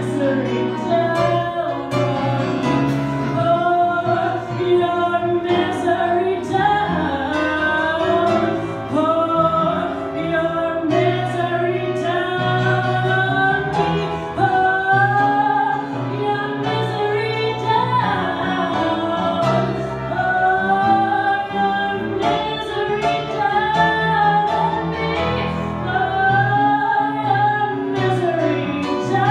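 A woman singing into a microphone, with long held notes that waver, over instrumental accompaniment.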